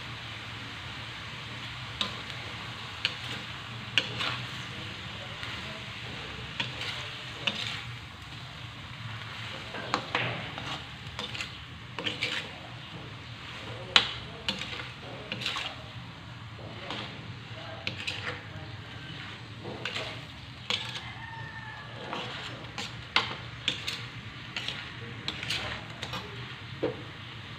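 Metal spatula scraping and knocking against a steel wok as squid is stirred in it, with irregular clacks over a steady sizzle. One knock about halfway through is louder than the rest.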